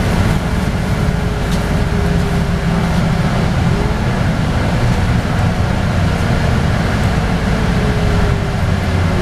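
Interior of a LiAZ 5292.22 low-floor city bus under way: a steady low rumble of engine and road, with a faint whine that drifts slowly in pitch.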